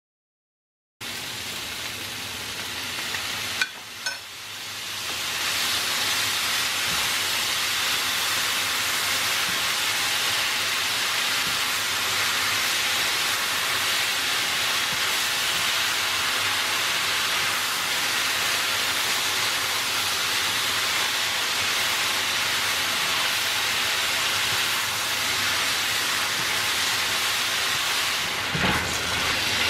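Beef and pepper stir-fry sizzling in a pan over high heat, with a couple of clicks about four seconds in; the sizzle then grows to a steady, louder hiss after the sauce goes into the pan.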